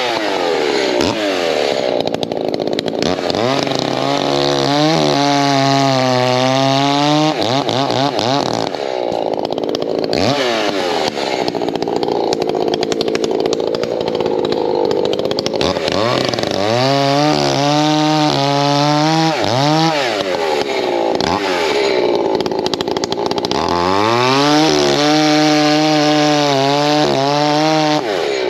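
Echo two-stroke chainsaw bucking oak into firewood rounds: the engine runs at full throttle, its pitch sagging as the chain loads into a cut and climbing back as it frees, over and over.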